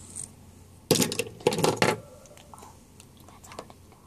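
A burst of clattering clicks and knocks, about a second long and starting about a second in, as small hard objects are handled close to the microphone; a few faint ticks follow.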